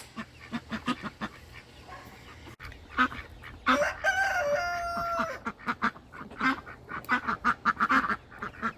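Chickens clucking with many short calls, and a rooster crowing once, a long call of over a second starting about four seconds in.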